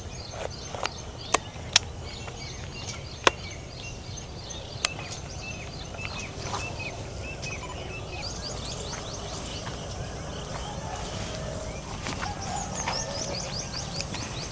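Many small birds chirping and chattering, with short falling calls repeated throughout and growing busier in the second half. Several sharp clicks cut in during the first five seconds, louder than the birds.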